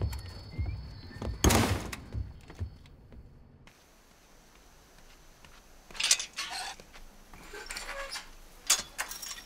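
A door is pulled open with a sharp knock and rattle about a second and a half in; then, after an abrupt drop to quiet outdoor air, comes a series of short metallic clinks and rattles, like a chain-link fence gate being handled, the last and loudest near the end.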